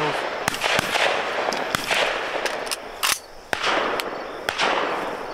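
Several shotgun shots in quick succession, some loud with a long rolling echo and others fainter and sharper, as dove hunters fire at passing birds.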